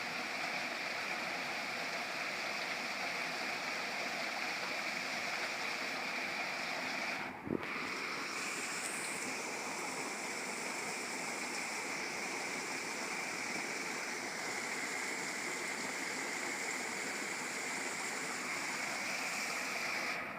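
Steady rush of flowing water, with a brief break about seven seconds in.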